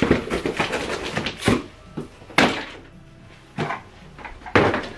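Rustling and scraping of soft protective wrapping being pulled out of a cardboard box and handled, in several separate bursts.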